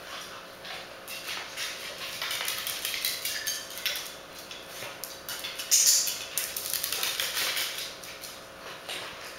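A corgi's claws clicking and tapping on a ceramic tile floor as it walks about, with a louder, sharper clatter a little over halfway through.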